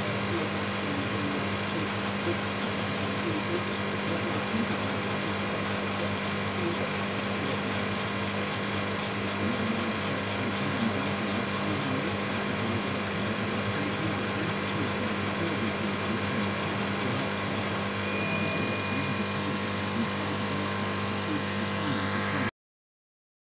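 100-watt CO2 laser engraver running a job: a steady machine hum, with the laser head moving slowly on its gantry. The sound cuts off suddenly near the end.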